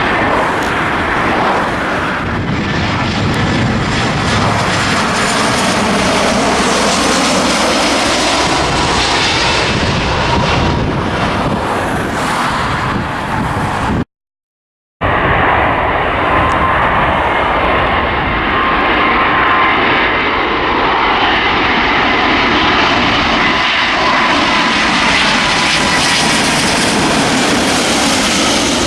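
Jet airliner engines passing close by, loud, heard in two passes. In each pass the engine whine bends in pitch as the aircraft goes over. The sound cuts out for about a second midway.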